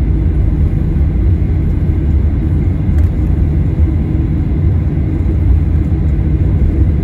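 Steady low rumble inside the cabin of a Boeing 737-900ER taxiing, its CFM56 turbofan engines running near idle.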